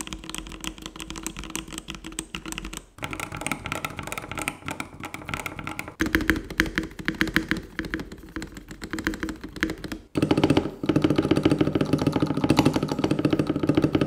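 Typing sound test on a Melgeek Mojo68 plastic-edition mechanical keyboard: a fast, dense run of keystrokes. It comes in four takes split by short cuts about 3, 6 and 10 seconds in, and the last take is the loudest.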